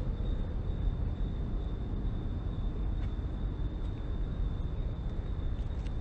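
Steady low outdoor background rumble with a faint, thin high tone held throughout.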